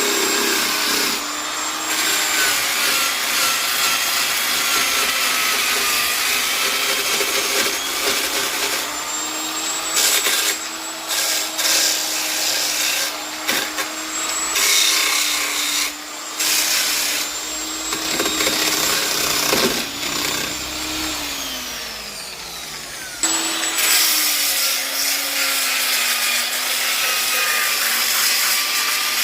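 Black & Decker electric polisher running against ipê wood, its motor hum wavering in pitch under load over a rough sanding rasp. About twenty seconds in the motor winds down with a falling pitch, and a couple of seconds later it starts up again.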